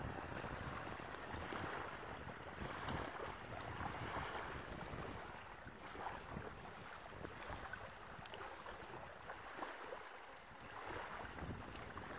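Wind buffeting the microphone over small waves lapping at the shore.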